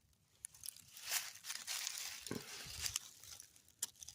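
Rustling and crunching in dry forest litter as a person moves through it, with a few sharp snaps and a dull thump a little past two seconds in.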